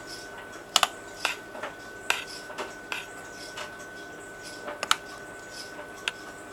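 A spoon clinking and scraping against a saucepan while stirring a thick chocolate cookie mixture, in irregular knocks about once or twice a second.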